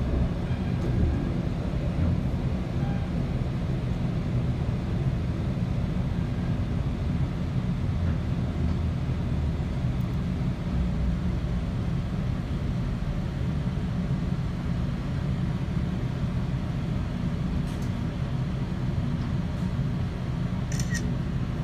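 Steady low rumble of a Metrolink commuter train rolling along the track, heard from inside the passenger car, with a few faint clicks near the end.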